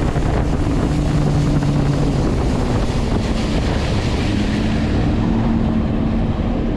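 Motorboat running at speed: steady engine sound under wind buffeting on the microphone and the rush of water off the hull, the engine note stepping lower about halfway through.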